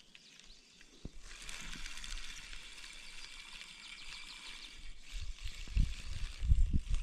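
Spinning reel being wound in, its rotor and gears giving a steady fine rapid ticking from about a second in. Low knocks and thumps join near the end.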